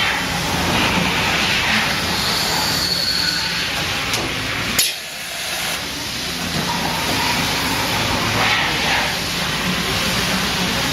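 Mazak VTC-250D vertical machining center running: a steady mechanical noise, with a sharp click about five seconds in and a brief drop in level just after it.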